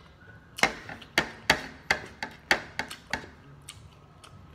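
A run of about eight sharp knocks or taps on a hard surface, close to the microphone, roughly three a second, starting about half a second in and stopping a little after three seconds.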